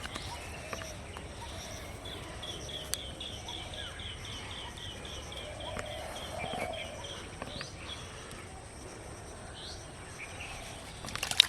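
A bird calling a quick series of short, high notes, about four a second for some four seconds, over steady rural background noise. Near the end comes a short burst of sharp clicks or knocks, the loudest sound here.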